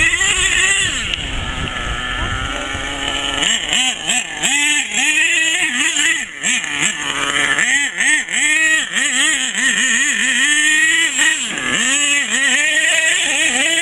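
HPI Savage 4.6 monster truck's small two-stroke nitro engine, a high buzzing note. It runs fairly steadily for the first few seconds over a low rumble, then revs up and down over and over, about once or twice a second, as the throttle is worked on the climb.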